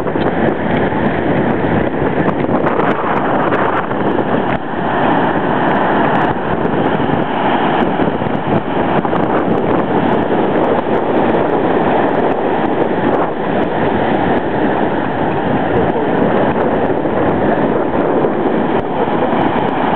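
Ocean surf breaking and washing in a steady roar, mixed with wind buffeting the microphone.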